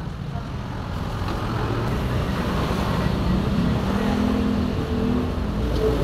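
Another motor vehicle's engine running nearby: a steady low rumble that grows slightly louder, with a hum that comes in about halfway through and fades near the end.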